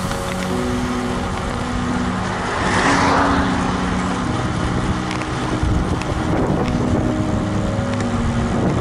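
Wind rushing over the microphone and bicycle tyres rolling on rough asphalt as a KhVZ Start Shosse road bike runs at speed with a tailwind, with a louder whoosh about three seconds in.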